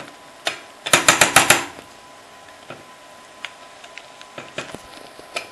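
Kitchen utensil rapping on a stainless steel saucepan, with one knock and then a quick run of about six sharp knocks about a second in, shaking crème fraîche off into the courgettes. A few faint clicks follow.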